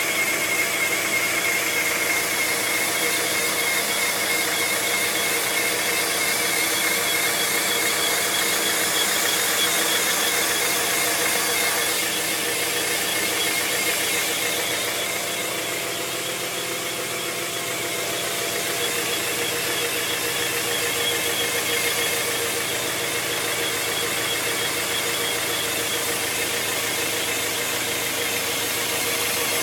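1997 Honda Prelude SH's manual transmission whining over the running engine: a steady high-pitched whine, a little quieter around the middle. The owner says it is not the sound of a bad throwout bearing.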